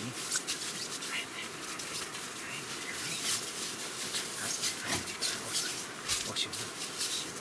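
Dogs moving about on a nylon tent groundsheet and bedding close by: a continuous run of short scratchy rustles.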